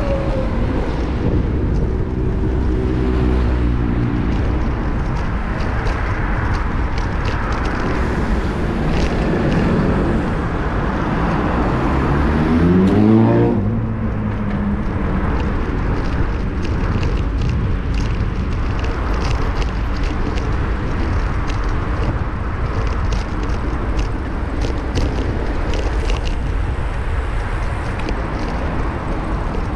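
Busy street traffic heard from a bicycle-mounted camera: a steady rumble of road noise, with a motor vehicle's engine climbing in pitch as it speeds past, loudest about thirteen seconds in. Many short clicks and rattles run through the second half.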